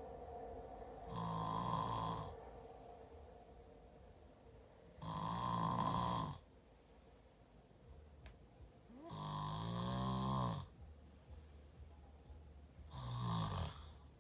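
A man snoring in his sleep: four loud snores about four seconds apart, each a pitched drone lasting a second or so, with quiet between them.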